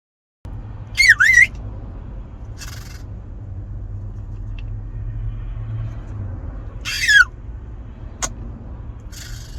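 A parrot squawking: two sharp calls with sweeping pitch about a second in and another, falling, about seven seconds in, with shorter harsh hissy screeches between them, over a steady low hum.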